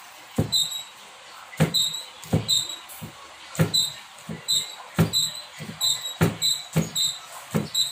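Large broad-bladed kitchen knife chopping a peeled bamboo shoot on a wooden chopping board: a run of knocks as the blade strikes the board, about two a second and quickening in the second half, each with a short bright ring.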